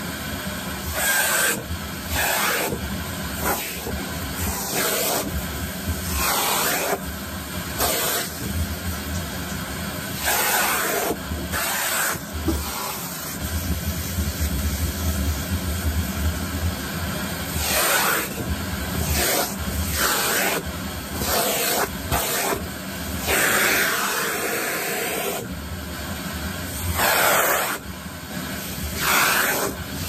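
Cylinder vacuum cleaner running steadily, its nozzle drawing at long doll hair. The rush of air swells and drops every second or two as the nozzle works through the hair.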